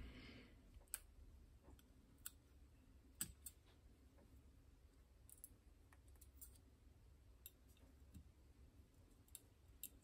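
Faint, scattered clicks, about eight of them, of small metal lock parts being handled: the lock cylinder, pins and a pick tapping against each other and a brass pinning tray.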